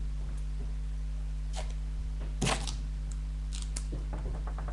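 A few short rustles of paper plate and sticky tape being handled, the loudest about halfway through, over a steady low electrical hum.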